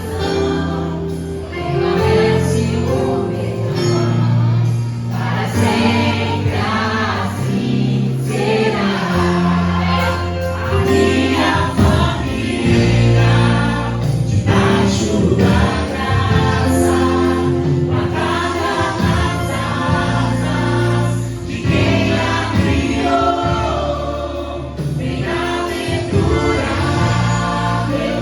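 Christian gospel song with a group of voices singing over a full band with steady bass.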